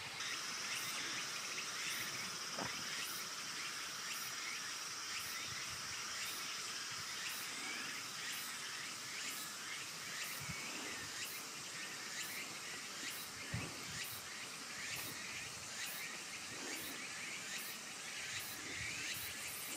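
Outdoor insect chorus: a steady high-pitched insect drone with a regular faint pulsing above it, plus a few soft thumps.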